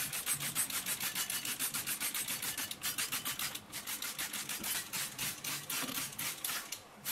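Trigger spray bottle of degreaser pumped rapidly, giving a fast series of short hissing squirts, about six a second, with a couple of brief pauses.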